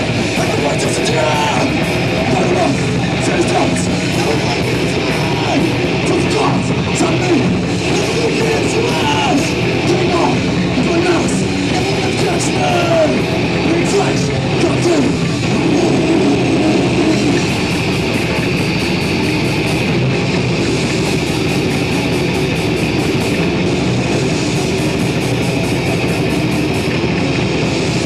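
Metal band playing live at full volume: two electric guitars, bass guitar and drum kit in a dense, steady wall of sound.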